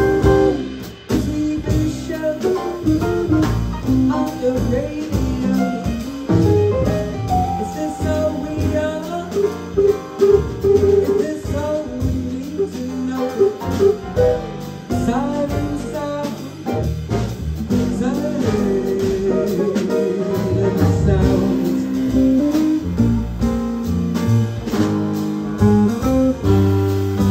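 Live jazz band: a woman singing into a microphone over a hollow-body electric guitar, upright double bass, drum kit and piano.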